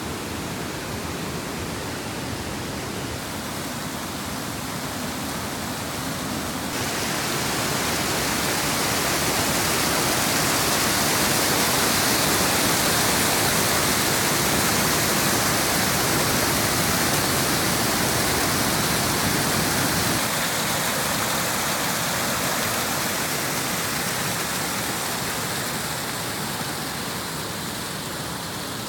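Steady rush of falling water from a waterfall. It gets abruptly louder and brighter about seven seconds in, then eases back somewhat about twenty seconds in.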